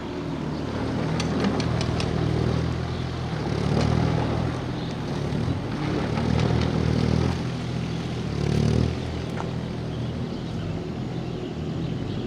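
CAT 301.4 mini excavator's diesel engine running, its note swelling and easing about four times as it takes load, with a few light clicks about a second in.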